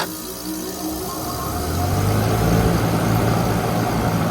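2018 3.5-ton Ameristar heat pump starting up, its Copeland scroll compressor and fan coming on. It cuts in suddenly, and a steady hum builds and grows louder over about the first two seconds, then runs evenly.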